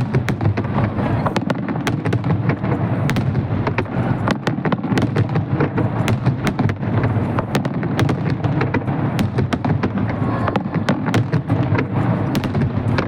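Fireworks exploding in quick, overlapping succession: a continuous barrage of bangs, booms and crackles with a steady low rumble beneath.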